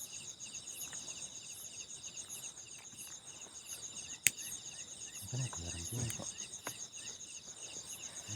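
Night insect chorus, crickets trilling steadily in rapid high pulses at two pitches. A single sharp click about four seconds in, and faint voices murmuring briefly around five to six seconds in.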